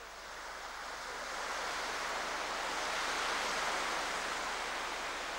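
Sea surf on a beach: a wave swells up, breaks and washes in, then slowly eases off.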